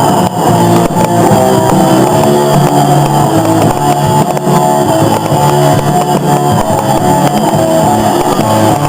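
Loud rock music with guitar, steady throughout.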